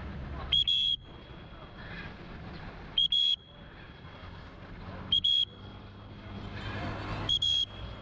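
Electronic beeper sounding four times, a short high-pitched beep about every two seconds, over a low steady city hum.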